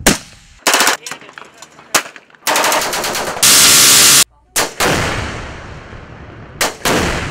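A montage of gunfire: a single rifle shot, short bursts of rapid automatic fire, then a rotary minigun firing in one unbroken stream for almost a second before it cuts off. A large explosion follows, its rumble fading over about two seconds, and a second blast comes near the end.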